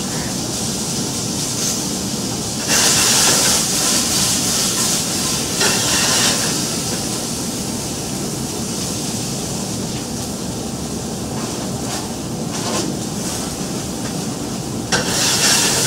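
Vegetables sautéing in a hot skillet, sizzling with a steady hiss that surges louder about three seconds in, briefly again around six seconds, and once more near the end.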